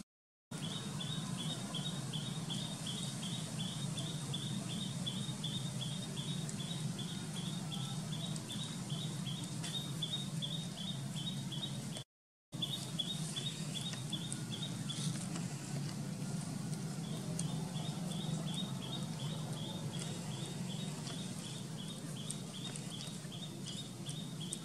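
Outdoor ambience: a high chirp repeating about three to four times a second, with a pause of a couple of seconds past the middle, over a steady low background noise. The sound cuts out completely twice, briefly at the start and about halfway.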